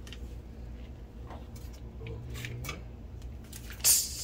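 Faint small clicks and scrapes, then about four seconds in a sudden loud hiss as butter goes into a hot frying pan and starts to sizzle.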